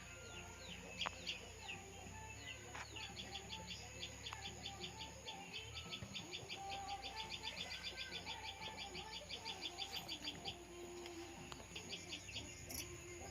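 A bird calling in a fast, even series of short high chirps, about seven a second, for several seconds, with scattered single chirps before and after.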